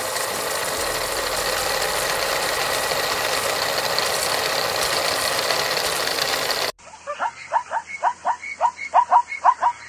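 A steady, dense rattling sound effect, like a drumroll or fast ticking, plays while the question is up and cuts off suddenly about two-thirds of the way in. Then a plains zebra gives its barking call: a quick run of short, high yelps, about five a second, each rising in pitch.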